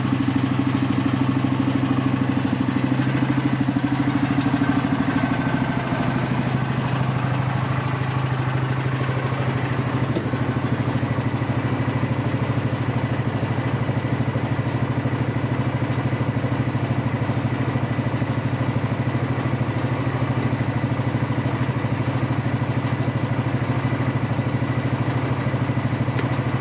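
Yamaha G2 golf cart's gas engine idling steadily, with a low even hum; a higher part of its note fades away a few seconds in.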